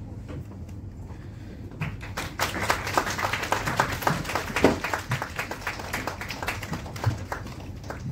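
Audience applauding. The clapping starts about two seconds in, swells, then thins out near the end.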